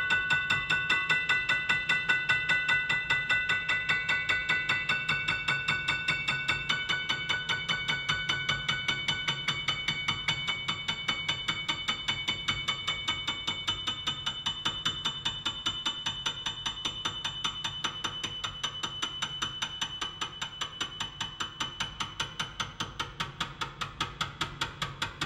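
Background music: a quick, even pulse of short struck notes with held high tones over it.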